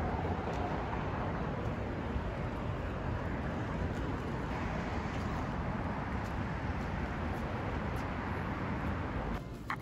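Steady low rumbling noise like a moving vehicle or traffic, which cuts off abruptly near the end.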